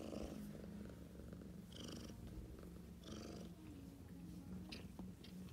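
Siamese mother cat purring steadily beside her newborn kittens. A few short breathy noises come about 2 and 3 seconds in.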